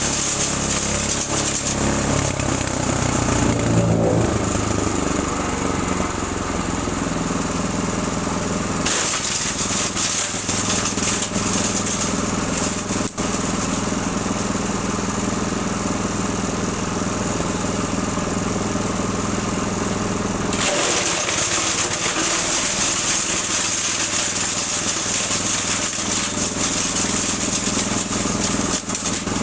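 The 6.5 hp engine of a Breckner wood chipper running steadily, its pitch wavering in the first few seconds. The hiss above it changes abruptly about nine seconds in and again about twenty-one seconds in.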